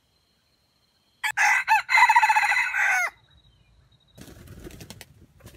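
Red junglefowl rooster crowing once, about a second in: a loud crow of under two seconds. A faint rustling noise follows near the end.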